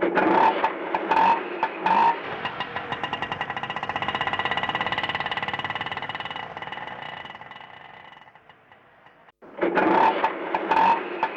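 Auto rickshaw's small engine running with a fast, even chugging. A few sharp loud bursts come in the first two seconds, then the engine sound fades away. It cuts off suddenly, and the same sound starts again near the end.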